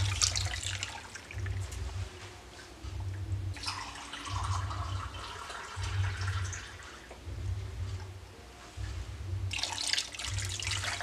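Water poured from a glass measuring cup into a pressure cooker over raw pork ribs, splashing onto the meat near the start and again near the end, with another stretch of running water in the middle. A low hum pulses about every second and a half throughout.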